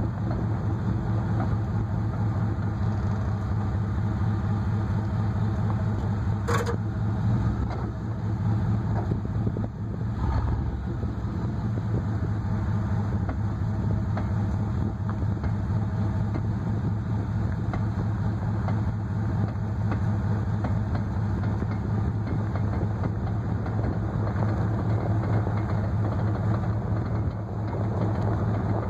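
1994 Chevy Silverado pickup running steadily, a low, even hum with one brief sharp click about six seconds in.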